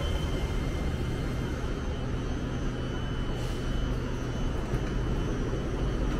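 Steady hum of an SRT Red Line electric commuter train standing at the platform, its air-conditioning and onboard equipment running, with a low rumble and a faint high steady tone.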